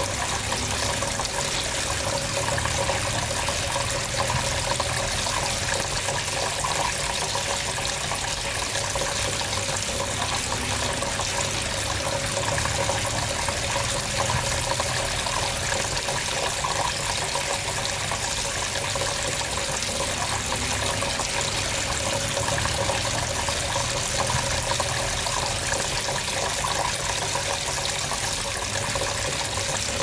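Tabletop rain fountain running: thin streams of water falling steadily from the top bar and splashing into the water-filled basin below.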